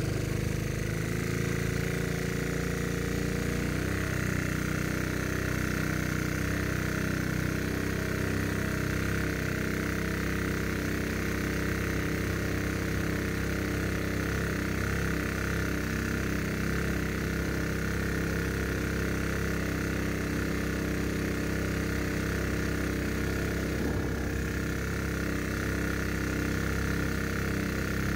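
Modified Honda GX200 single-cylinder engine with a Tillotson TCT carburettor, driving a longtail mud motor, running steadily at full throttle.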